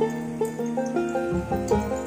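Background music, a quick run of plucked-string notes.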